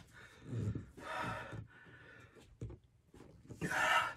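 A man breathing hard through his open mouth against the burn of extremely hot chili jerky. There is a heavy breath about half a second in and a louder, hissing breath near the end.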